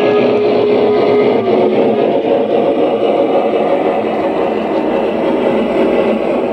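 Digital steam-locomotive sound of a Union Pacific Big Boy 4-8-8-4 working under steam, from an ESU LokSound 5 decoder in a Rivarossi HO-scale model. It plays through an EM2 speaker in the tender and a Sugarcube speaker under the chimney. The exhaust and mechanical sound is steady and dense, easing slightly as the model runs away.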